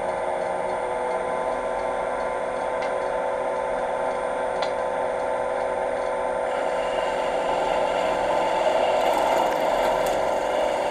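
Wood lathe running at about 1500 rpm with a half-inch bowl gouge cutting pine: a steady motor hum under a rough rubbing, scraping cut that gets louder and brighter about six and a half seconds in. The gouge is no longer sharp and is pushing rather than cutting, tearing chips out of the pine.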